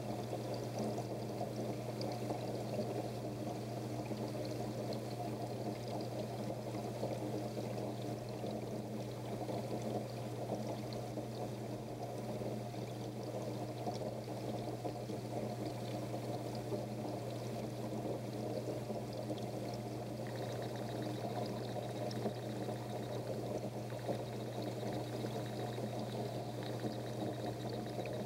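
Aquarium filter running: water pouring and trickling back into the tank without a break, over a steady low hum.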